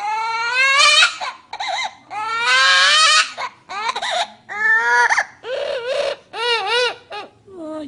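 A parrot mimicking a baby crying: a run of loud wailing cries with short gaps between them, some wavering up and down in pitch.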